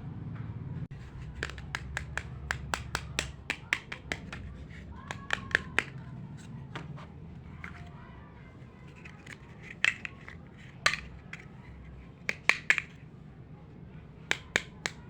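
Small hard plastic pieces clicking and tapping as a tiny block-built toy kitchen set is handled and put together. The clicks come quickly in the first few seconds, then sparser and louder ones follow.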